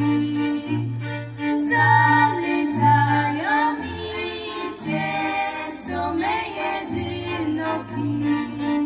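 Polish highlander (góral) folk band playing live: women singing a song together over violins, with a cello playing short rhythmic bass notes underneath.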